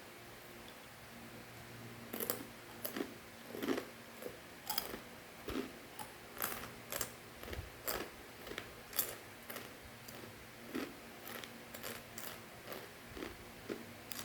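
Crispy fried macaroni snack being chewed, with sharp crunches about two a second starting about two seconds in.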